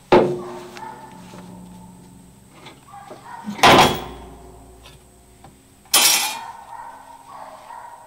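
Three loud metal clanks, each dying away with a short ring, from work on a steel circle sawmill's saw and carriage.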